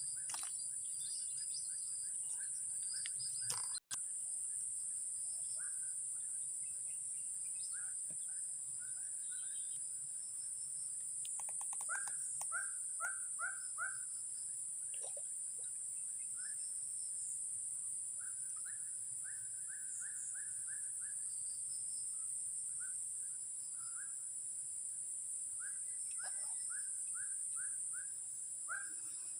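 Outdoor natural ambience: a steady high-pitched insect drone, with a bird calling in runs of short, quickly repeated chirps.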